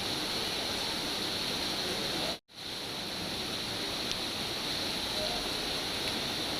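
Steady rain, an even hiss, that cuts out for a split second about two and a half seconds in before resuming.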